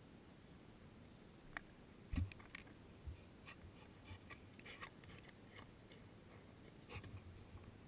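Faint light clicks and rustles of a spaniel's paws running over grass as it comes up close, with a dull thump about two seconds in and another small flurry of clicks near the end.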